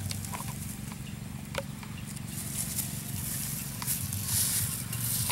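Thin plastic sheet crinkling and rustling under the hands, starting about two seconds in, after a few light clicks and taps. A steady low hum sits beneath.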